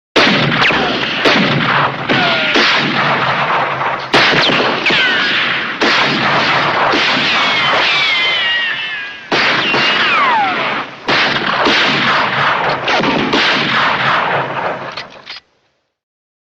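Rapid gunfire from an old film soundtrack, shot after shot with several ricochet whines falling in pitch. The sound cuts off suddenly near the end.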